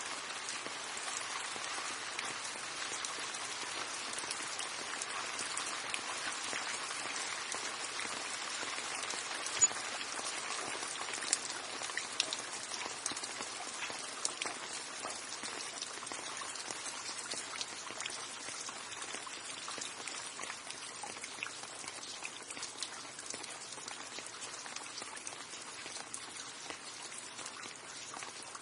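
Steady rain falling, a dense even hiss with individual drops ticking on a surface and a few sharper drop hits now and then; it eases slightly near the end.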